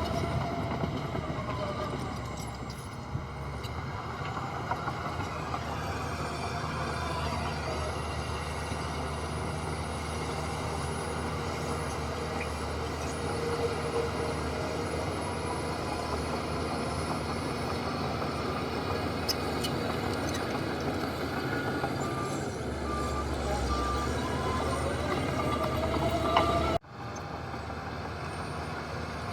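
Heavy earthmoving machinery running steadily, with a reversing alarm beeping in a regular series for a few seconds near the end. The engine sound breaks off sharply near the end and resumes at a lower level.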